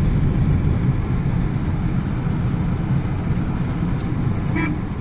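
Steady low rumble of engine and tyre noise inside a moving car's cabin, with a light click about four seconds in.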